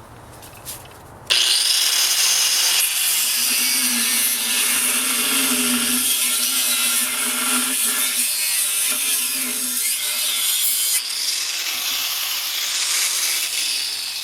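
Craftsman angle grinder starting up about a second in, its abrasive cut-off wheel grinding steadily through the tire and an aluminium rib of the wheel beneath it. A humming tone runs under the cutting noise in the middle stretch.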